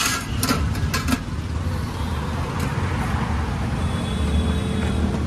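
Steady low rumble of road traffic, with a few sharp clinks of serving spoons against steel vessels in the first second.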